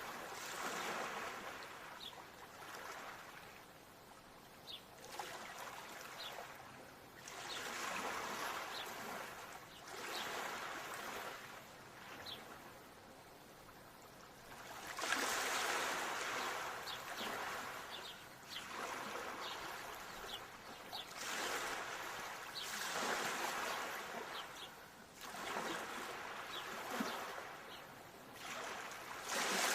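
Ocean waves washing in and receding, swelling in loudness every three to five seconds. Faint, short, high chirps are scattered through the sound.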